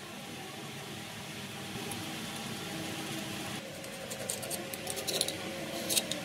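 Low steady workshop hum, then from about halfway a run of light metallic clicks and taps, the sharpest near the end, as a steel vernier caliper is slid and set against a steel workpiece on a lathe.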